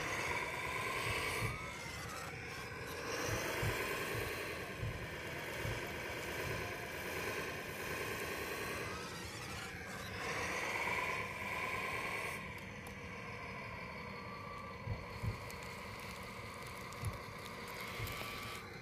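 Electric motors and gearboxes of a 1/14 scale RC Cat excavator whining as the boom, arm and bucket move and the upper body swings, the pitch gliding up and down with each movement. The whine falls quieter after about twelve seconds, with a few light knocks near the end.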